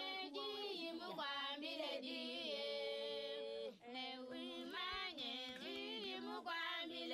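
Women's voices singing a melody unaccompanied, with long held notes that slide between pitches.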